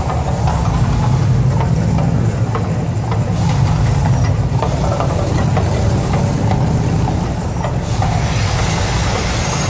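Man-made volcano attraction erupting: a loud, continuous deep rumble with a rushing noise over it as gas fireballs burst around the volcano.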